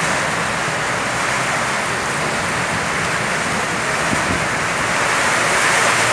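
Heavy tropical rain pouring steadily, a dense, even rush of water that grows a little louder near the end.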